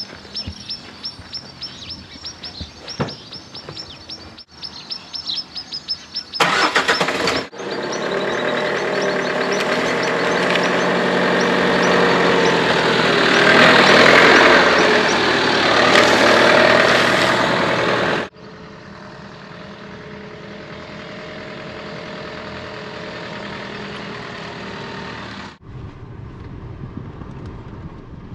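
Birds chirping at first, then a vehicle running along a road. The road noise is loudest through the middle stretch, and the sound changes abruptly several times as clips cut from one to the next.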